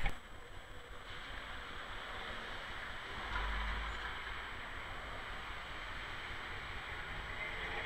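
A Milan Class 1500 'Ventotto' tram rolling slowly along its street track: a steady noisy rumble, with a heavier low rumble about three and a half seconds in.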